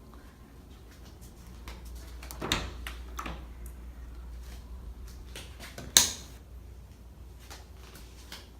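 Scattered knocks and clicks of fittings being handled in a small room, with a sharp clack about six seconds in.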